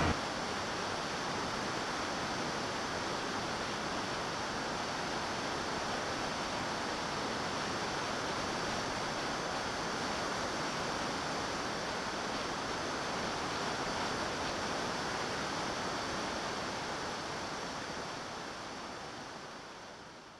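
Steady rushing wind noise on the RC plane's onboard camera microphone in flight, fading out over the last few seconds.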